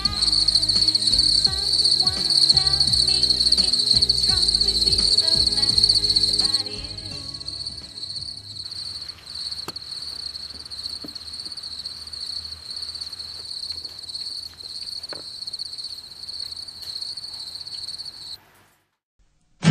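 Crickets trilling steadily at a high pitch, with music underneath that drops away after about six and a half seconds. A few faint clicks sound in the quieter part, and the trilling cuts off about a second before the end.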